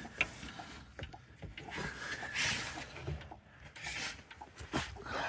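Faint handling noise: scattered light clicks and knocks with brief rubbing or scraping, a couple of times louder around the middle and near the end.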